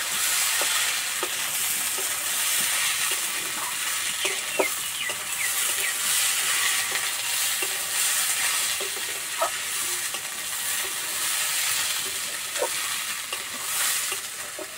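Rice sizzling as it toasts in ghee and oil in a metal kadai, with a long metal spatula scraping and clicking against the pan as it is stirred. The sizzle fades near the end.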